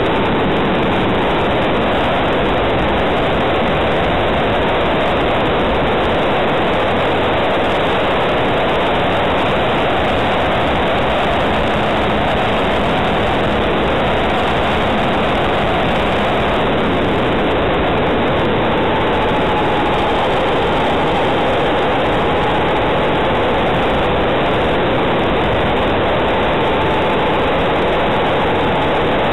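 Steady rushing wind noise over the microphone of a camera mounted on an aircraft in flight, with a faint motor tone underneath that dips slightly in pitch partway through and then comes back up.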